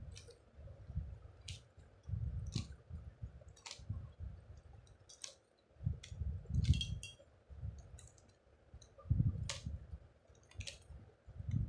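Magnetic 3×3 Rubik's-style cube being scrambled by hand: its plastic layers turn with sharp, irregular clicks, over low rumbling from handling.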